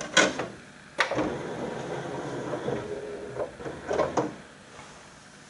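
Hi-fi CD player's disc tray loading a CD: sharp clicks as the disc goes in and the tray shuts, a motor running for a couple of seconds as the disc spins up, then a few more clicks before it settles.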